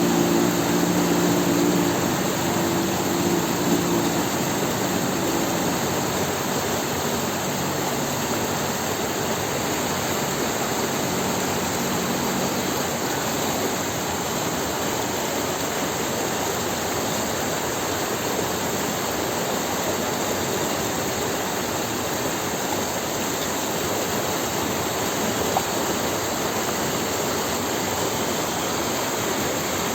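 Outboard motor driving a water jet, its hum fading over the first several seconds under a steady, loud rush of water and wind noise.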